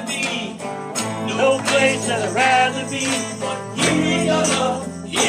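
Worship music: sustained keyboard-like chords under a wavering sung melody, with jingling percussion such as bells or a tambourine. The chords change about a second in and again near four seconds.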